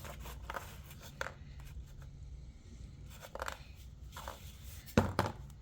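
Scattered crinkles and light clicks from small parts and packaging being handled, with one sharp knock about five seconds in.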